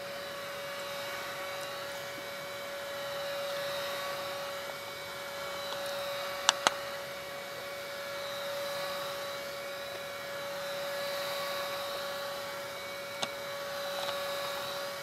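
Handheld UV curing lamp running with a steady hum and whir, swelling and easing gently as it is moved over the coated board, curing the epoxy grit coating. Two sharp clicks about halfway through.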